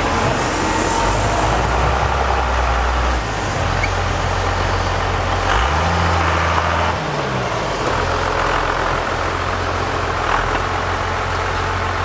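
1994 Dodge Ram 2500's 5.9-liter Cummins turbodiesel running at low revs as the truck crawls through deep snow, revving up briefly about six seconds in and settling back down.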